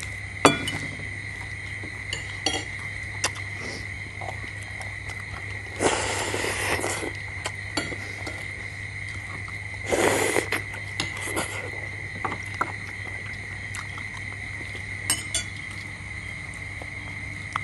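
Spoons clinking against balut eggshells, china bowls and plates during a meal, in scattered sharp taps, with two louder spells of eating noise about six and ten seconds in. A steady high-pitched drone and a low hum run underneath.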